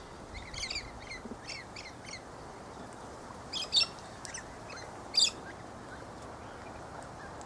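Galahs calling: short, high-pitched chirping calls, a quick run of them in the first two seconds, then a pair about three and a half seconds in and a sharper single call about five seconds in.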